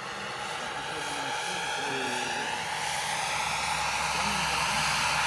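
Radio-controlled scale BK 117 model helicopter flying low, its rotor and motor whining. The sound grows steadily louder as it comes closer.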